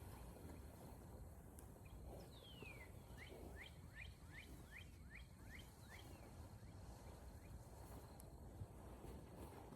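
Near silence with a faint low background rumble. A bird sings faintly: one falling whistle, then a quick series of about eight short down-slurred notes, roughly three a second.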